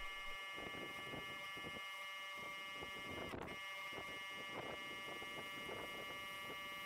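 Faint steady hum made of several fixed tones, with a few soft ticks.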